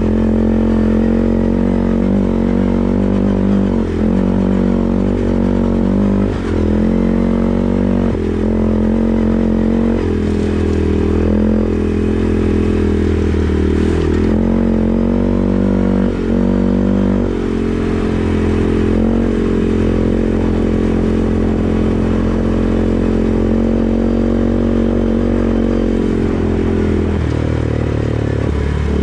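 CFMoto 450 ATV's single-cylinder engine running steadily under way, the throttle easing off and opening again several times, with the engine note dropping near the end.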